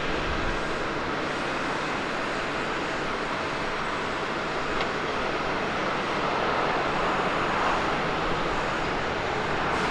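Jet engine noise from a landing Boeing 787-8 airliner as it touches down and rolls out on the runway, a steady rushing sound that grows a little louder in the later seconds.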